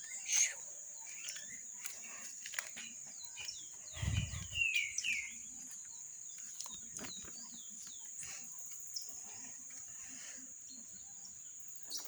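Birds chirping in short calls over a steady high-pitched insect drone, with one low thump about four seconds in.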